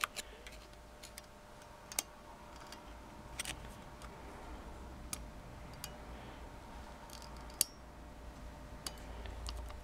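Scattered small metallic clicks and taps as bob-weight springs are stretched with fishing line and snapped over their posts in a motorcycle ignition advance unit. There are about ten single clicks, the sharpest about three-quarters of the way through, over a faint steady hum.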